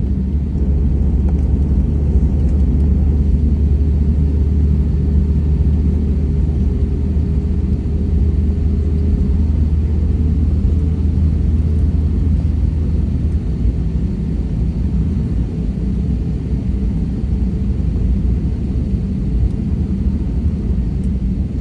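SAS Airbus A320neo: a steady, loud low rumble of its engines and airflow, with a faint steady hum a little below 500 Hz.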